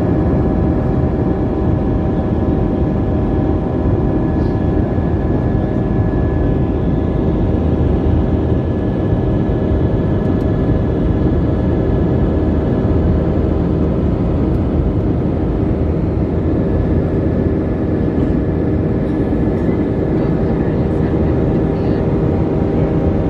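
Airbus A320's jet engines heard inside the cabin during the climb after take-off: a loud, steady drone of engine and airflow noise with several steady whining tones on top, unchanging throughout.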